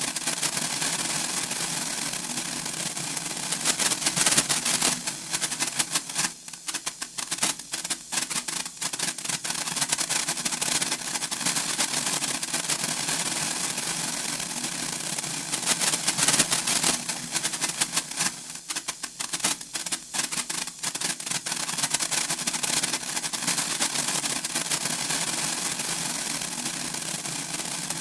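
Senko hanabi (Japanese hand-held sparkler) spitting sparks: a fast, dense crackle of tiny pops. It swells twice and then thins out to scattered pops before building again.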